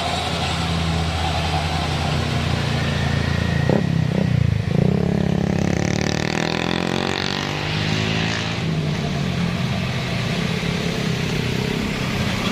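Road vehicles passing through a bend: a steady low engine drone, loudest about four to five seconds in, then sweeping in pitch as a vehicle goes by close.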